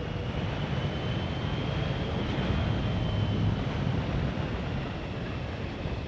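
Steady wind rush and road noise from a BMW K1200GT motorcycle under way on a wet road in the rain, with a low rumble underneath.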